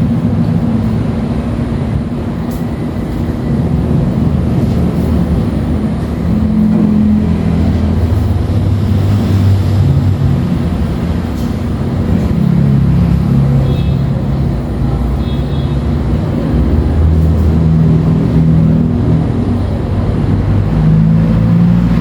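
A steady, loud, low mechanical rumble, with a deep hum that shifts in pitch every few seconds.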